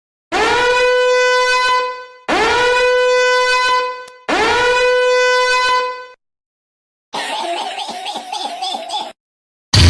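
A horn sounding three identical long blasts of about two seconds each, every blast sliding up into one steady, brassy note. It is followed by a shorter, rougher, wavering sound effect, and music starts right at the end.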